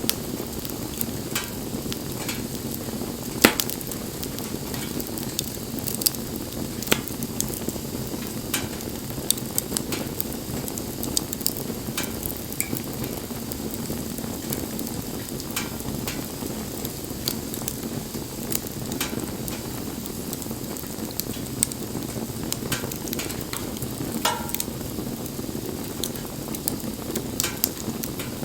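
Wood bonfire burning: a steady low rush of flame with irregular sharp crackles and pops, the loudest about three and a half seconds in.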